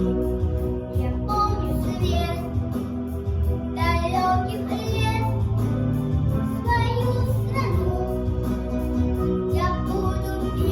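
Young children singing a song together over a recorded backing track.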